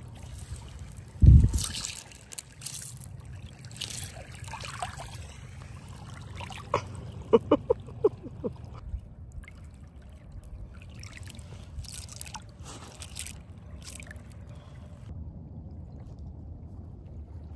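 Small waves lapping at a pebble shore, with scattered clicks of wet stones as a hand sifts through them. A single loud low thump comes about a second in, and a few short high squeaks come near the middle.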